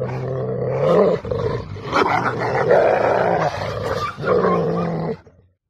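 Dogo Argentino growling, the growl breaking off and restarting several times.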